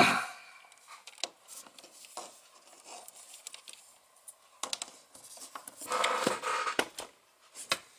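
Handling noise: a few sharp knocks at the start, then scattered light clicks and rustling, with a denser patch of rustling and clicks about five to seven seconds in.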